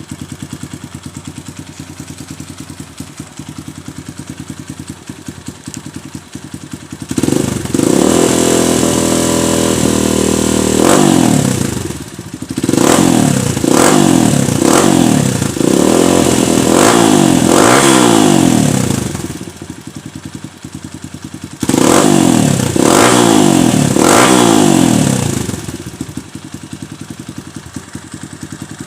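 Kawasaki D-Tracker 150's single-cylinder four-stroke engine running through a Scorpion aftermarket exhaust. It idles, is held up in revs for a few seconds, then given a run of quick throttle blips. It drops back to idle, gets a second run of blips, and settles to idle again.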